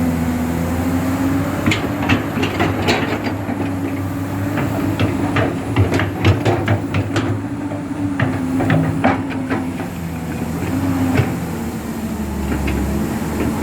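Komatsu PC200-8 hydraulic excavator's diesel engine running, its pitch dipping and recovering as the hydraulics take load, with many sharp knocks and clanks from the machine at work, most frequent through the middle.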